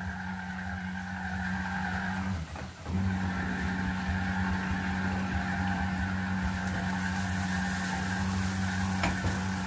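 A steady mechanical hum from a kitchen appliance motor, with a short dip about two and a half seconds in.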